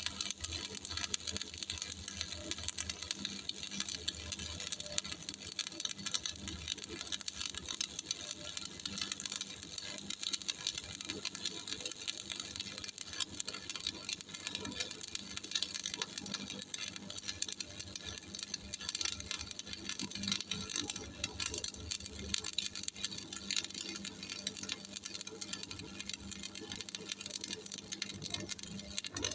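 Shielded metal arc (stick) welding arc crackling steadily as a 3.2 mm E6013 electrode burns, powered by a Miller Thunderbolt 225 welder.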